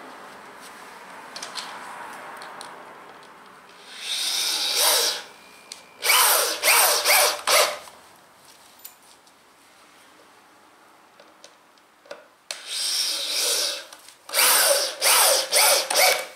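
Corded power drill driving screws into pressure-treated pine boards, twice. Each time the drill runs steadily for about a second, then gives a quick series of short bursts as the screw is seated.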